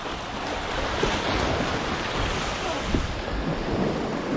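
Sea surf washing over shore rocks, swelling about a second in, with wind buffeting the microphone.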